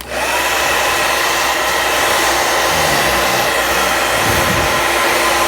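Repaired hair blower switched on, its motor and fan coming up to speed within half a second, then running at a steady loud whir with a high whine, blowing hot air on a heat test.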